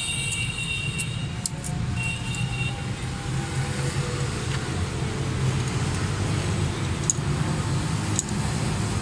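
Steady low rumble of a running motor vehicle in the background, with a few light metallic clicks from a small spanner on the rocker-arm tappet adjusting screws as the valve clearances are set.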